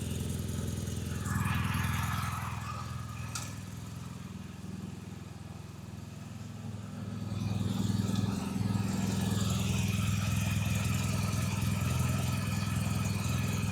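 BMW R 1250 GS Adventure's boxer twin engine idling steadily on fresh oil, run to fill the new oil filter during a leak check. It gets quieter in the middle and louder again from about eight seconds in.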